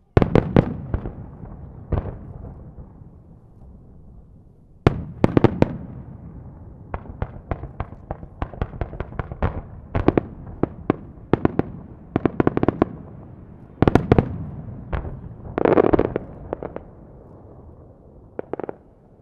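Aerial firework shells bursting: heavy single booms at the start and a few seconds in, then rapid volleys of sharp cracks, and a longer crackling burst near the end.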